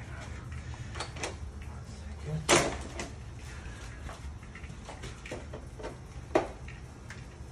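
Scattered clicks and knocks from a door and its mortise lock hardware being handled, with two sharper knocks, about two and a half seconds in and again near the end.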